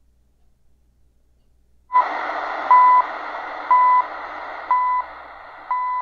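A shortwave time signal (CHU Canada on 3330 kHz) coming in over the Eton Grundig Executive Satellit's speaker. The radio is nearly silent while seeking, then stops on the station about two seconds in. From then on there is static hiss with a 1 kHz beep about a third of a second long each second, four beeps after a short first blip.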